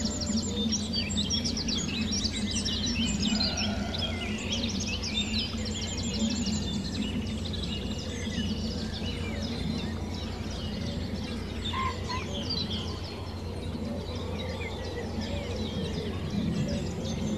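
Several birds chirping and singing at once in a dense, continuous chorus of quick, high chirps and trills, over a steady low rumble.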